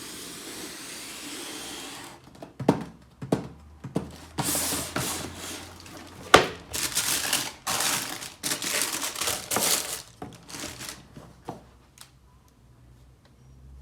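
Sneaker box packaging being handled and unwrapped: a run of crinkling, rustling wrap, with one sharp knock about six seconds in, then it goes quiet near the end.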